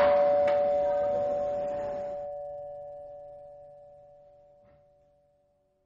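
Doorbell chime ringing out after a last strike at the very start: two steady tones fading away over about four seconds.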